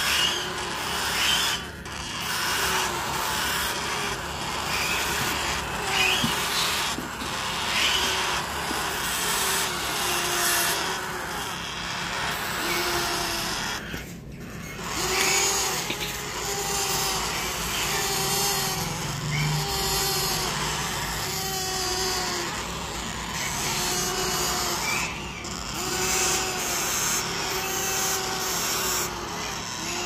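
Parrot chicks begging while being syringe-fed: a steady raspy, buzzing chorus with short pitched calls repeating about once a second.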